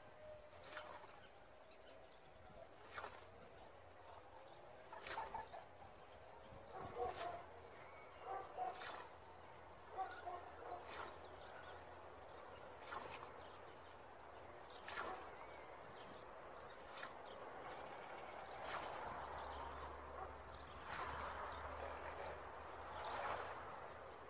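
An old East European scythe swishing through standing alfalfa, one faint stroke about every two seconds, with birds chirping between the strokes.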